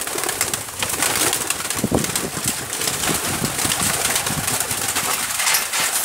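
A large flock of pigeons cooing while feeding, over many quick clicks and rustles of pecking and wing flaps.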